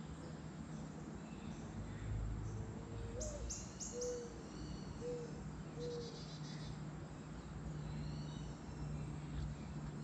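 Backyard birdsong: a bird gives a run of five low hooting coos over about three seconds, the second one sliding upward. A few sharp high chips and a brief high trill from small birds come in among them, over a steady low hum.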